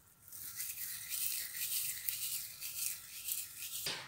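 Fingers rubbing and crumbling chopped parsley over a pot of soup, a dry, steady rustling hiss, with a brief louder rustle near the end.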